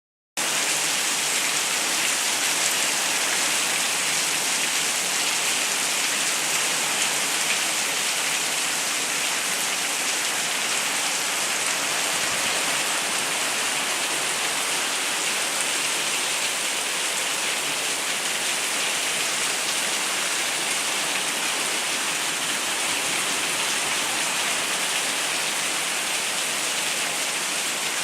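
Heavy rain pouring down steadily, a dense even hiss of drops hitting surfaces.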